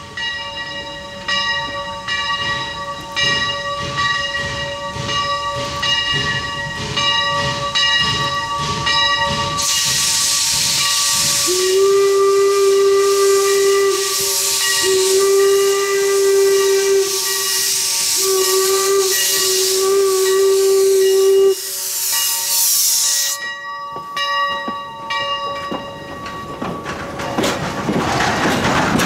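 Steam locomotive No. 331 arriving: its bell rings steadily, then loud steam hissing starts about ten seconds in, and the steam whistle sounds several blasts on one note. The hiss cuts off suddenly, the bell keeps ringing, and the coaches roll past near the end.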